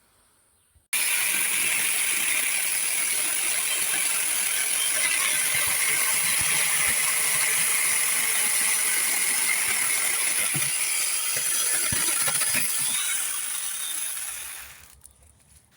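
Cordless 6-inch electric mini chainsaw running, a steady high whine with chain noise. It starts abruptly about a second in and dies away near the end.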